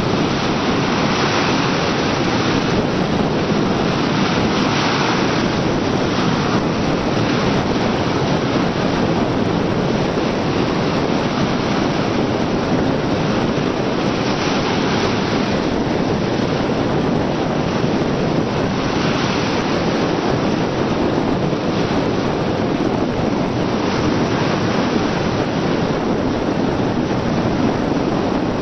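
Steady rush of wind buffeting the microphone over choppy sea and breaking surf.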